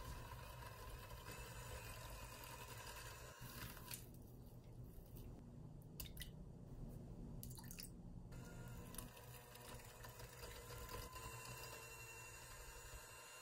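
Faint whine of an electric hand mixer beating butter and sugar in a glass bowl. It stops partway through, while eggs are dropped into the bowl with a few wet drips and clicks, then starts again and beats the eggs into the creamed mixture.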